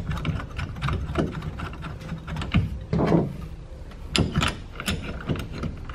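Hands handling a truck rack upright's base and its 12 mm fasteners on the bed rail while starting the bolts: scattered small clicks and knocks, with a few louder knocks about two and a half to five seconds in, over a low steady hum.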